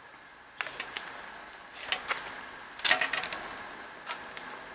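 Plastic fork scraping and clicking against a plastic takeout tray while scooping up cauliflower rice. The clicks come in a few short bursts, the loudest about three seconds in.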